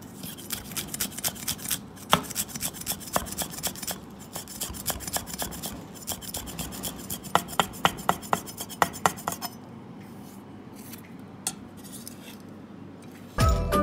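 Large kitchen knife chopping fresh green leaves on a wooden chopping block: rapid sharp chops, several a second. They stop about two-thirds of the way through, leaving only a couple of taps, and music starts at the very end.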